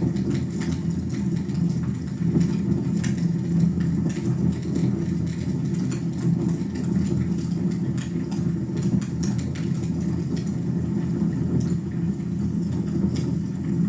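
Fire burning in a fireplace: a steady low rumble with scattered sharp crackles.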